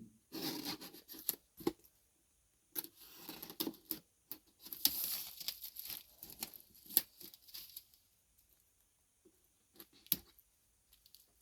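Plastic wrap on a model kit box being cut and pulled off, crinkling and tearing in irregular rustles with sharp clicks. It stops about eight seconds in, leaving a few scattered clicks, one sharper than the rest near the end.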